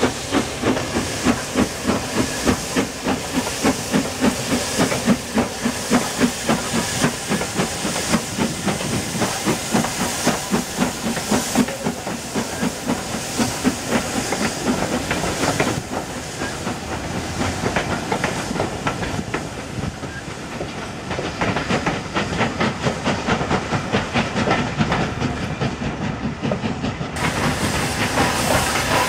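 Great Northern Railway N2 class 0-6-2T steam tank locomotive working a passenger train: a regular rhythm of exhaust beats over a steady hiss of steam.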